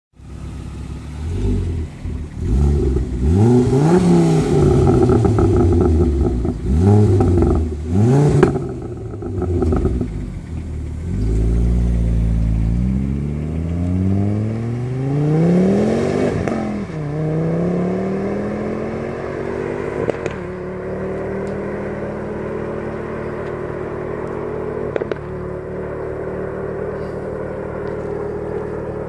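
Performance car engine revved hard in several quick blips, then a longer rev that rises and falls, then a steady note that climbs slowly in pitch.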